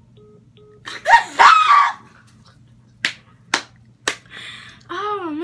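Two faint phone beeps as the call ends, then young women shrieking with laughter. Three sharp hand claps follow, and near the end a wavering, drawn-out vocal whoop.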